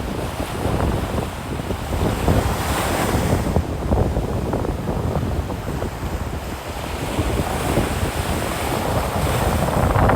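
Ocean waves breaking on the beach, with heavy wind buffeting the microphone in low rumbling gusts.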